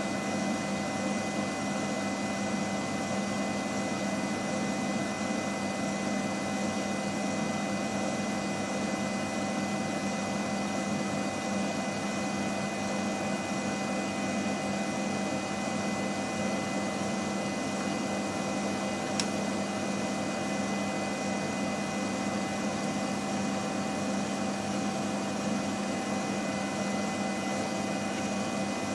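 Steady machine hum and hiss with a few constant tones, like a fan running, and one short click about two-thirds of the way through.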